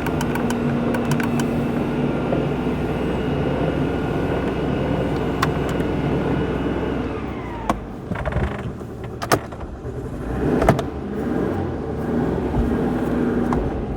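Citroen GSA's air-cooled flat-four engine running steadily; about seven seconds in its pitch falls away and it runs more quietly, with a couple of sharp knocks after that.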